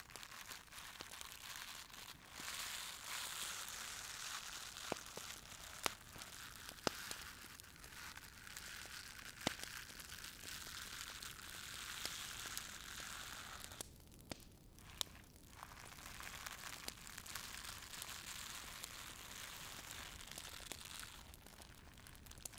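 Fire crackling: a steady hiss with scattered sharp pops and snaps, a few louder ones in the first half, briefly quieter a little past halfway.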